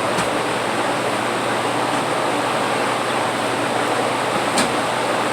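Electric fan blowing close to the microphone, a steady loud rushing noise. A single brief click about four and a half seconds in.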